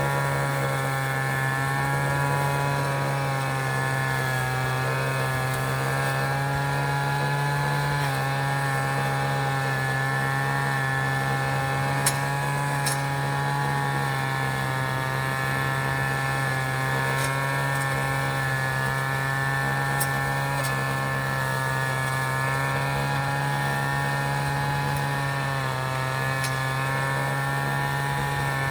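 City traffic ambience: a steady, unchanging vehicle engine drone with a strong low hum, broken only by a few brief clicks.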